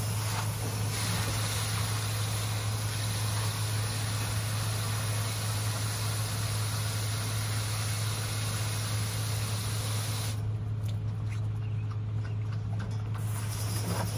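Garden hose nozzle spraying water in a steady hiss, cutting off about ten seconds in and starting again near the end. A steady low hum runs underneath throughout.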